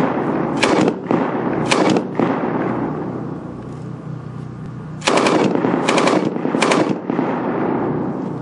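Gunfire on an outdoor range: two sharp reports about a second apart, a pause of about three seconds, then three more in quick succession, each followed by an echoing tail.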